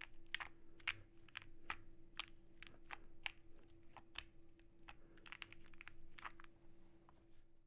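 Typing on a Glacier 80 tenkeyless mechanical keyboard with lubed, filmed Black Cherry Pie linear switches, a POM plate, PE and Poron foam, a tape mod and GMK ABS keycaps: a stream of keystroke clacks, several a second and irregular.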